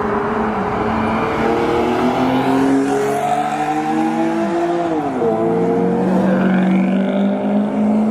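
Supercar engine accelerating hard, its pitch climbing, with a quick upshift about five seconds in before it climbs again.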